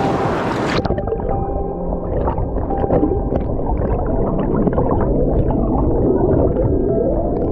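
Rushing mountain-stream water that turns abruptly muffled about a second in, as the microphone goes under the surface: the current then sounds as underwater gurgling and churning, with faint short steady tones through it.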